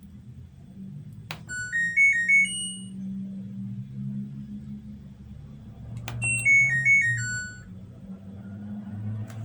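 Washing machine control panel beeping out two short electronic tunes. A click and a rising run of beeps come about a second in; another click and a falling run of beeps come about six seconds in. These are typical of a washer being switched on and then off. A steady low hum runs underneath.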